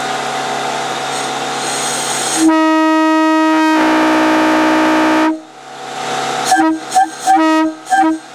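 Leslie RS-3L three-chime locomotive air horn blown from compressed air through a ball valve: a steady rush of air, then one loud chord held for about three seconds, then a quick string of short blasts near the end.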